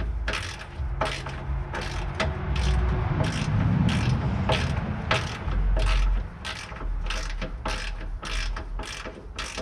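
Hand ratchet wrench clicking through repeated strokes, about two a second, as bolts on a van's transmission mount are tightened.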